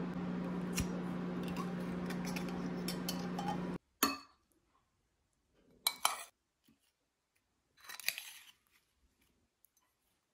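A steady low hum with a few faint ticks as a jelly jar's lid is handled, then, after it cuts off suddenly, a metal spoon clinking against ceramic bowls: two short clinks and a longer scrape as strawberries are spooned out.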